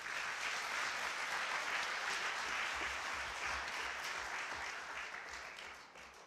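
Audience applauding: a full round of clapping that starts at once and dies away near the end.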